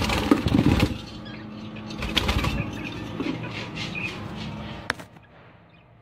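Budgie flapping its wings in a cage: two bouts of fluttering in the first few seconds, with a few short chirps between and a quieter end.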